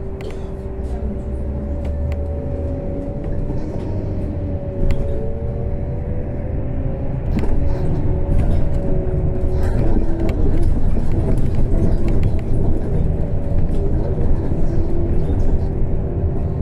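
Trolleybus interior on the move: low road rumble with steady whining tones from the electric drive, some gliding up and down in pitch. It grows louder about halfway through.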